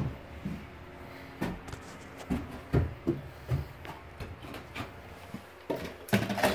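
Footsteps and soft knocks on bare wooden floor joists and loose boards, coming irregularly about once or twice a second, over a faint steady hum.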